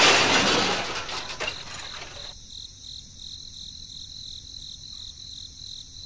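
A crashing, noisy wash fading away over the first two seconds and then cutting off, under a high, steady, pulsing insect trill like chirping crickets, which carries on alone afterwards.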